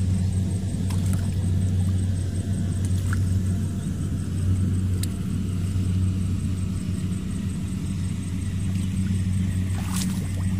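An engine running steadily with an even low hum that holds one pitch throughout, with a few faint clicks over it.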